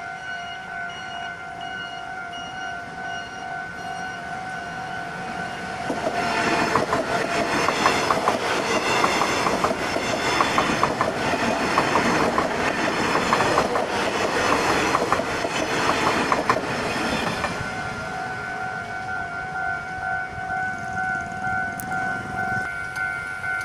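Refurbished EMU500 electric multiple unit passing close by at speed, its wheels clattering over the rail joints and the crossing for about eleven seconds before it fades away. Under it, the level crossing's electronic warning bell rings on and off in a rapid, even pulse.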